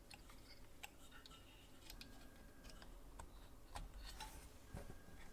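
Faint, scattered small clicks and ticks as fingers handle and close the hinged smokebox door of a brass model steam locomotive.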